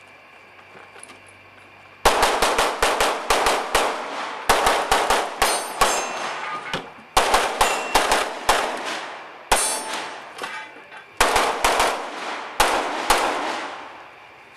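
Rapid pistol fire from an Open division race gun, starting about two seconds in. The shots come in fast strings of several each, separated by short pauses, and stop about a second before the end.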